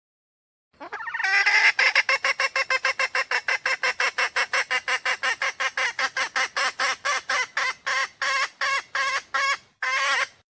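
Red junglefowl hen calling: a fast, even run of short repeated notes, about five a second, starting about a second in and running on with a brief break near the end. It is the hen's mating call that draws males.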